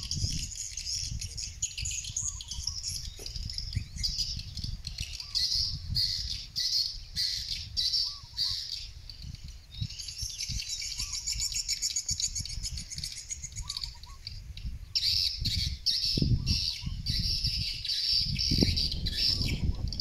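A flock of swiftlets twittering and chirping continuously around their nest house. A quieter short call repeats about every three seconds, and gusts of wind rumble on the microphone, strongest near the end.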